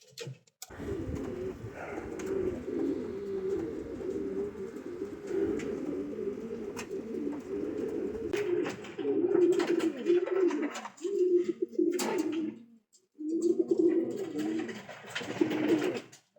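Domestic pigeons cooing, several birds at once in overlapping low warbling coos, with a couple of short breaks near the end.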